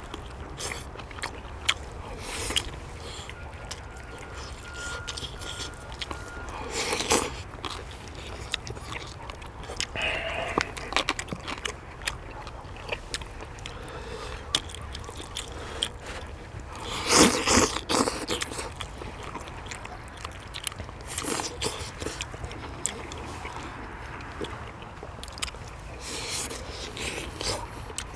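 Close-miked eating: people chewing and biting into braised chicken with wet mouth sounds, among many short sharp clicks. The loudest burst of eating noise comes a little past halfway.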